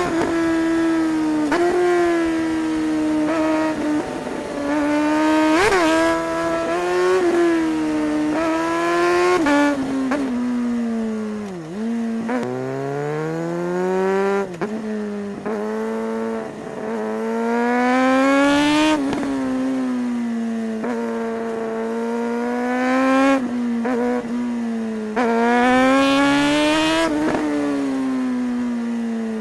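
Suzuki GSR 600 K8's inline-four engine under way, revving up through the gears with quick drops in pitch at each shift and easing off between pulls. About twelve seconds in the revs fall low, then climb in one long pull.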